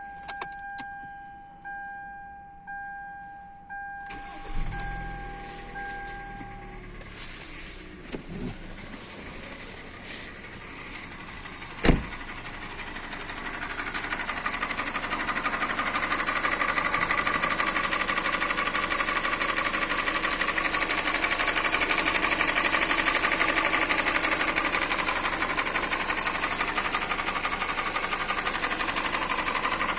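A 2013 Hyundai Elantra's 1.8-litre engine, shown for its knocking. A car's electronic warning beep sounds about once a second for the first several seconds while the engine starts with a low rumble. After a single sharp knock around the middle, the running engine grows loud and close, a dense steady clatter that is the knock in question.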